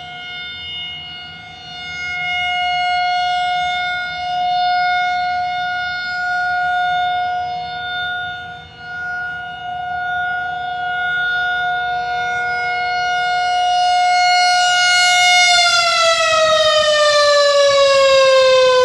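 Federal Signal 2001-SRN rotating electromechanical warning siren sounding a loud, shrill steady tone, its loudness swelling and fading as the horn turns. About three-quarters of the way through, the pitch begins to fall steadily as the siren winds down.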